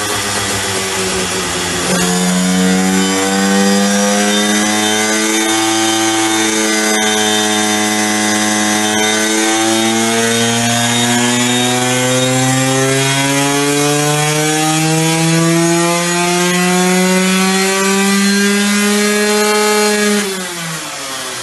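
Tuned 94 cc reed-valve two-stroke engine of a Hercules Ultra II, fitted with an experimental exhaust, running on a roller dyno in sixth gear. About two seconds in it goes to full throttle and gets louder, its note climbing steadily in pitch as it pulls up through the revs, then drops away quickly near the end as the throttle is closed: one full-load power run.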